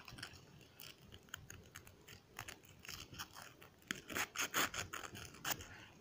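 Crinkled plastic bag being handled around a rusty skeleton key: irregular crackling and scraping, thickest and loudest from about four to five and a half seconds in.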